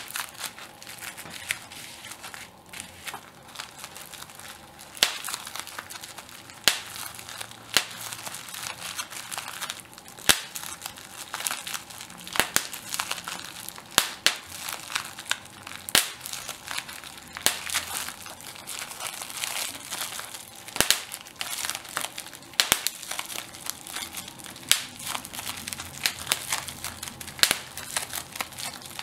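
Plastic bubble wrap being handled and popped: continuous crinkling of the plastic, broken by sharp, irregular pops several times a second.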